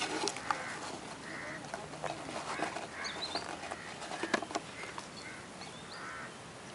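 Birds calling repeatedly in the background, with short calls and a few thin high chirps. Over them come a few sharp clicks from a phone and its box being handled, the sharpest about half a second in and just after four seconds.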